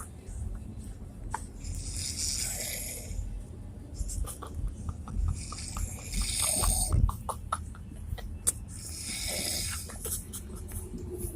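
Loud snoring: a hissing breath comes roughly every three and a half seconds, with scattered small clicks in between.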